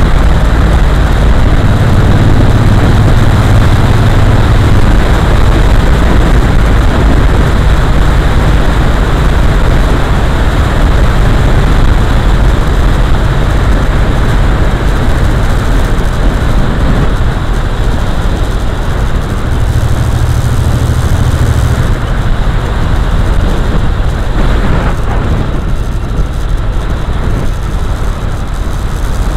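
Heavy wind rush on a camera riding a moving motorcycle at road speed, with the engine's low drone underneath, stronger for a few seconds near the start and again around two-thirds of the way through. The rush eases a little near the end as the speed drops.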